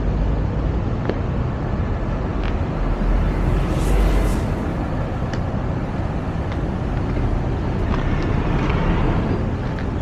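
Steady outdoor vehicle rumble with wind on the microphone, swelling briefly about four seconds in.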